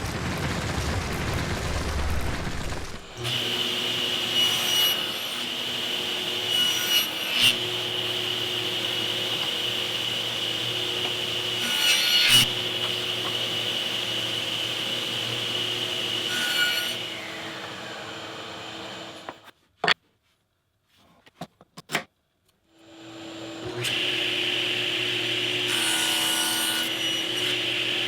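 A table saw running with a steady whine as it cuts wood, with a few louder moments during the cuts. It winds down, and after a short pause with a few clicks it starts up again and runs steadily.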